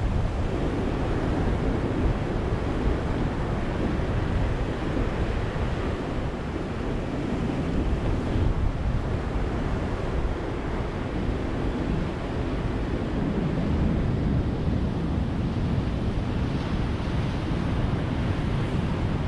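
Ocean surf breaking and washing onto a beach, a steady rushing wash that swells and eases slowly.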